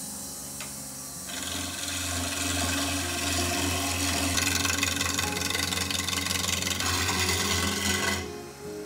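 Jet JWL-1220VS wood lathe running while a turning gouge cuts a long spindle, a steady rasping hiss of steel shaving spinning wood over the motor hum. The cutting starts about a second in and breaks off briefly near the end.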